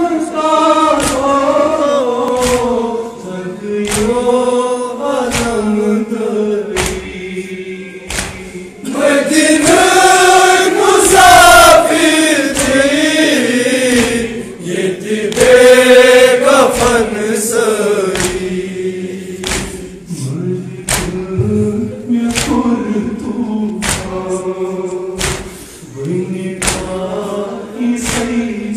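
Men's voices chanting a Kashmiri noha, a Shia mourning lament, together as a group into a microphone, over sharp beats about once a second.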